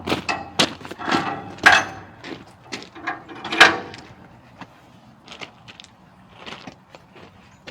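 A run of sharp clanks and knocks with a short ring, about one every half second, loudest twice, then fading to lighter taps after about four seconds. These are hands working rammed-earth formwork and its hardware.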